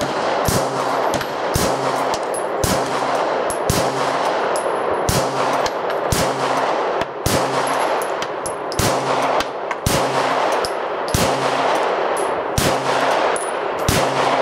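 Glock 19 9mm pistol fired in a steady string of shots, about one a second, each a sharp crack.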